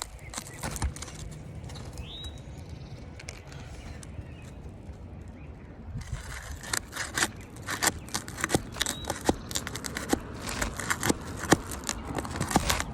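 Asphalt roof shingles being pried up with a flat bar: quick scrapes, clicks and crackles as the sealant strips let go, coming thick and fast from about halfway in, over a low rumble.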